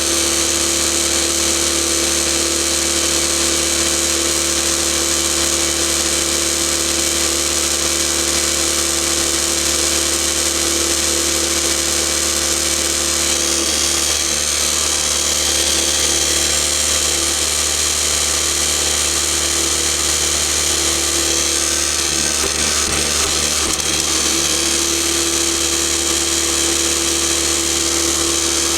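Backcountry Tornado F2 electric non-air drywasher running steadily during its cleanout: a constant electric motor hum with a high hiss over it.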